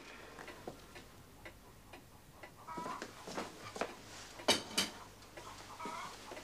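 Clock ticking steadily, about two ticks a second, with two sharp clattering knocks about four and a half seconds in.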